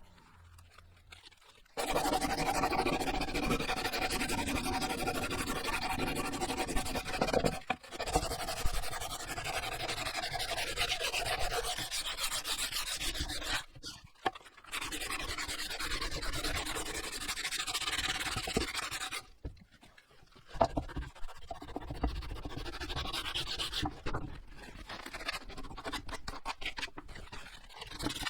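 Sandpaper rubbing on a wooden axe handle, sanding off its roughness, with a few short pauses between spells of sanding.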